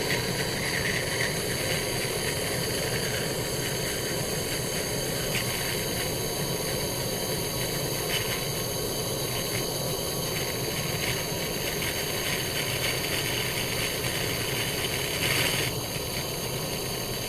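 Portable blowtorch flame burning steadily, heating a pipe joint from underneath to soldering temperature before the solder is applied.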